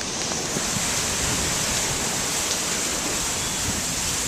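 Heavy monsoon rain driven by strong wind, a steady rushing downpour.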